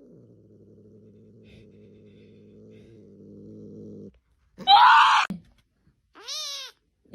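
A cat growling low and steadily for about four seconds, slowly getting louder. Then comes a sudden loud, rough yowl, and near the end a single meow.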